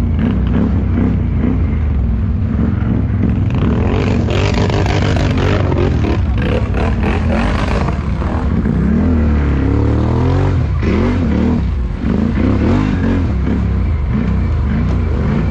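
ATV (quad bike) engines running loud on a muddy forest trail, revving up and down repeatedly through the second half.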